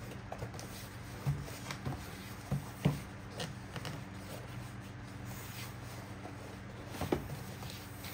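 Corrugated cardboard box being handled and turned on a desk: a series of light knocks and scrapes, clustered in the first four seconds and once more near the end, the strongest about three seconds in, over a steady low hum.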